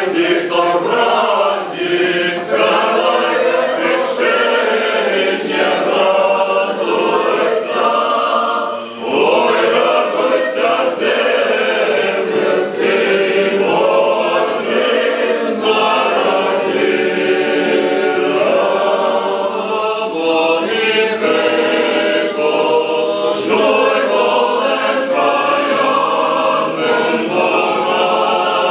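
Clergy and congregation singing an Orthodox liturgical hymn together as a choir, men's voices prominent, with a short breath-break about nine seconds in.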